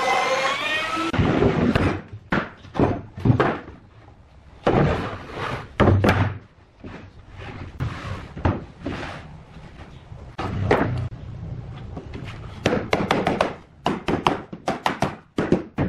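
A power tool's whine cuts off about a second in, followed by a long series of irregular thunks and knocks as solid pine boards are handled, laid down and fitted together on a wooden workbench.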